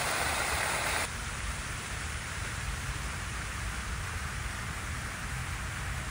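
Steady hiss of rain. About a second in it drops suddenly to a quieter, duller hiss.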